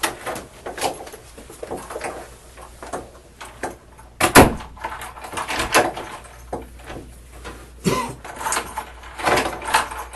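Interrogation-room door being unlatched and opened, with a sharp clunk about four seconds in and further knocks and rustling after it.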